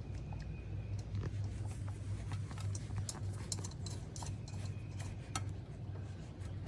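Small metal hardware and hand tools clicking and clinking irregularly as a nut is handled and fitted onto a bolt, over a steady low hum.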